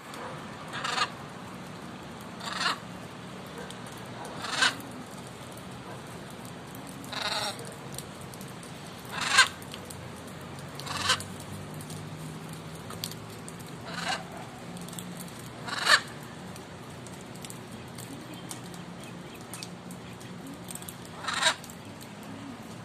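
Macaws squawking: about nine short, harsh calls spaced a few seconds apart, the loudest about nine and sixteen seconds in.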